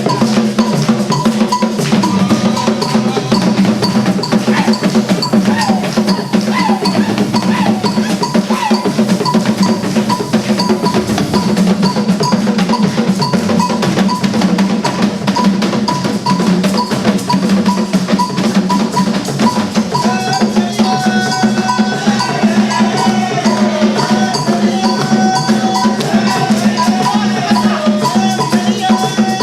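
Music driven by dense, fast drumming and percussion over a steady bass. A higher melodic line comes in about two-thirds of the way through.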